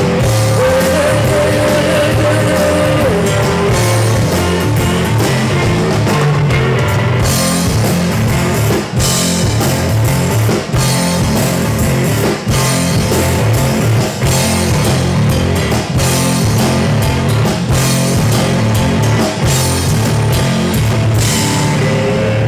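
Blues-rock trio playing live and loud: electric guitar, electric bass and drum kit. A guitar note is held near the start; from about a third of the way in, the drums hit the cymbals hard and the band makes short stops about every second and a half.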